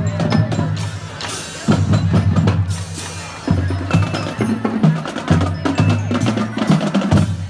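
School marching band playing as it marches: trombones and saxophones hold low notes over steady drum beats and sharp percussion strikes.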